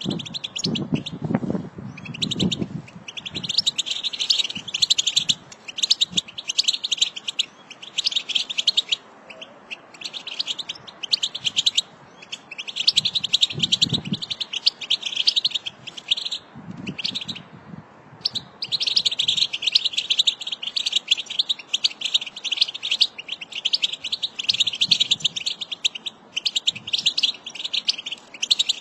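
American goldfinch singing: long rambling phrases of rapid high twitters and warbles lasting several seconds each, broken by short pauses, with a few low muffled bumps underneath.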